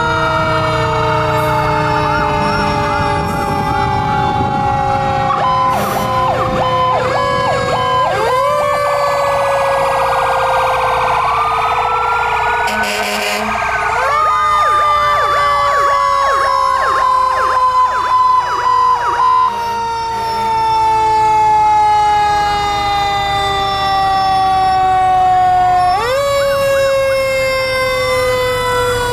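Several fire truck sirens sounding together as the trucks pass. One siren slowly winds down in pitch and swoops sharply back up about halfway through and again near the end. Quick up-and-down wailing sirens are layered over it through the first half.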